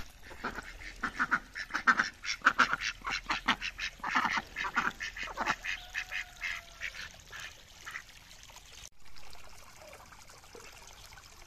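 Domestic ducks quacking in quick runs of short calls, several a second, then tapering off about eight seconds in.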